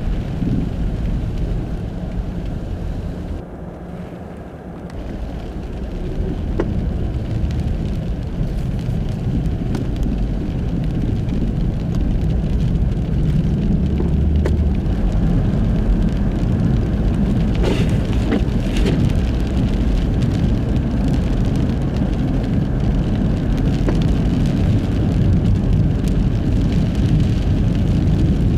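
Car running along a snow-covered road on studless winter tyres, a steady low rumble of tyres and drivetrain that dips about four seconds in and then builds back up. Two brief clicks about a second apart come roughly two-thirds of the way through.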